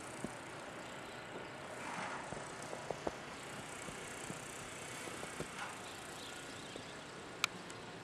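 Steady outdoor hiss with a few scattered light clicks, the sharpest one near the end.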